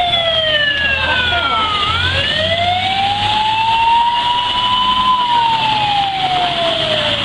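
Fire truck siren in a slow wail: the pitch falls, climbs for about three seconds, then falls again, over a steady low rumble.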